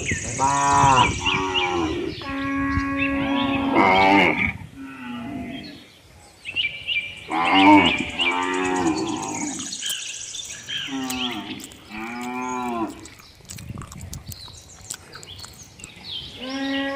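Cows mooing: a series of long, drawn-out moos, one after another with short pauses between them.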